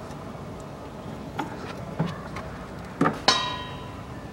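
Screwdriver working at the plastic latch of a windscreen-washer pump's wiring connector: a few light clicks and taps, then a sharp knock about three seconds in that rings briefly with a metallic tone.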